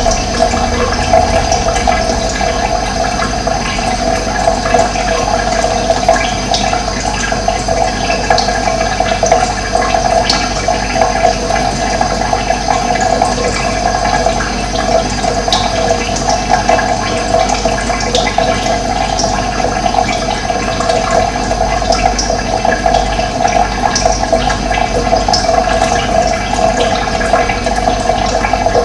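Running water flowing steadily, an even rushing sound with no break.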